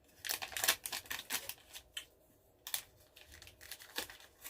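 Chocolate bar wrapper being handled and crinkled, in short irregular crackles with a brief quiet spell about two seconds in.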